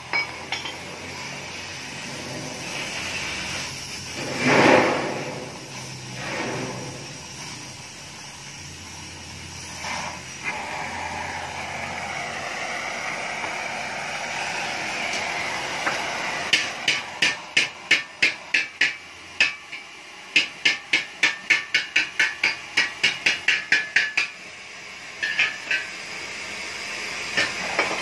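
Gas welding torch hissing steadily while a baffle is welded inside a motorcycle exhaust muffler, with a brief loud surge about four seconds in. In the second half comes a quick, even run of sharp taps, about three a second, with a few more near the end.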